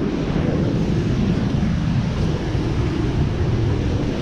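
Steady roar of rushing river rapids, with wind on the microphone.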